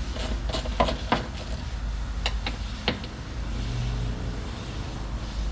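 Irregular metallic clicks and knocks of hand tools working on a car door, mostly in the first half, over a steady low rumble.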